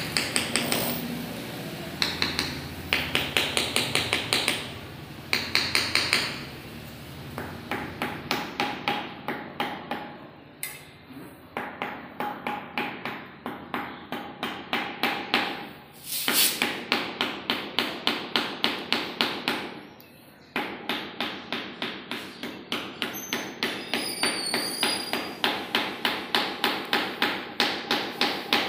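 Small hammer tapping a decorative inlay strip down into the joint between marble floor slabs: quick, even taps, about three a second, in runs broken by short pauses.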